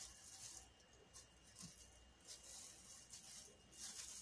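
Near silence: a few faint soft rustles of plastic-gloved hands handling battered corn cobs, over a faint steady high tone.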